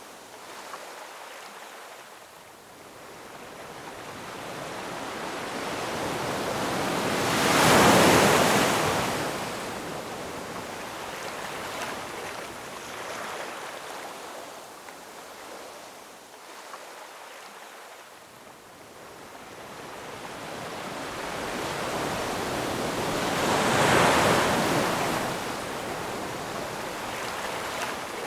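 Ocean waves breaking on rocks, swelling slowly to two loud crashes, about 8 and 24 seconds in, each followed by a long hissing wash.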